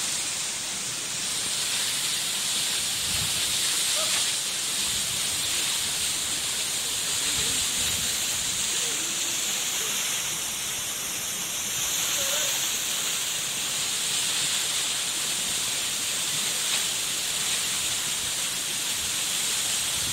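Steady rushing hiss of water falling down a partly frozen waterfall.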